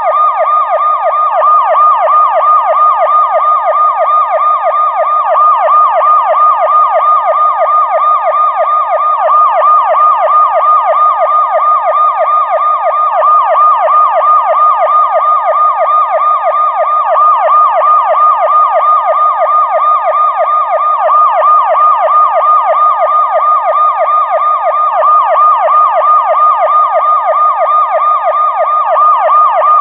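Electronic police car siren in a fast yelp: a rapidly rising and falling wail that repeats several times a second at an even level.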